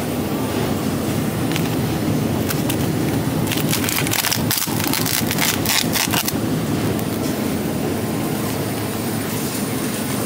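Plastic wrap on a foam food tray crinkling and crackling as the package is picked up and handled, for a few seconds in the middle, over steady background noise.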